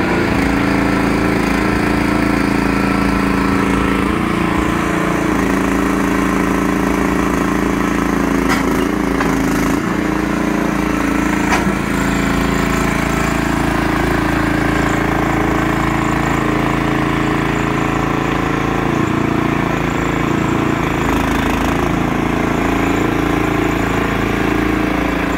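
Small gas engine of a motorized Tuff-Jack material mover running steadily as it drives the machine along carrying a pallet of roofing material, with a few brief knocks around the middle.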